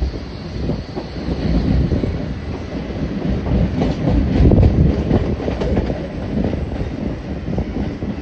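A train's wheels rumbling and clattering over the rails, heard from aboard the moving train. The noise swells loudest about halfway through.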